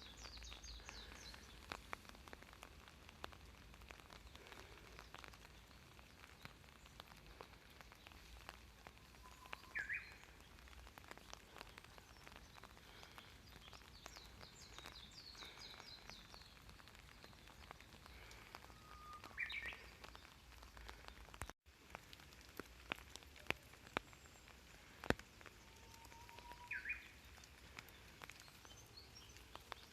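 Japanese bush warbler singing its 'hoo-hokekyo' song three times, each a short low whistle followed by a quick higher phrase. Fainter high chirps from other small birds and scattered sharp ticks like dripping water run underneath.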